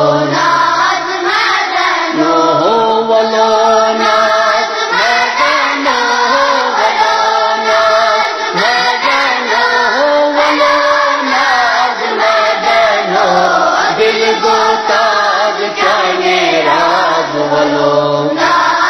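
A chorus of children singing a Kashmiri naat, a devotional song, together. The melody rises and falls without a break.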